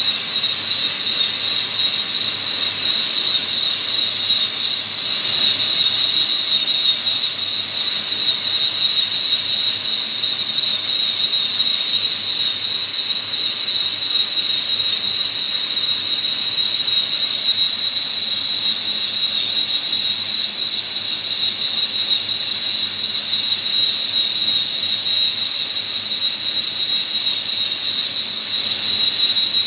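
Lathe turning metal: a steady, high-pitched squeal held without a break over a constant machine hiss.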